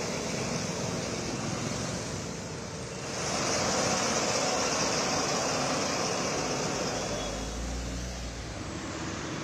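Road traffic noise with a water tanker truck driving by. A louder steady hiss sets in about three seconds in, and a low rumble comes near the end.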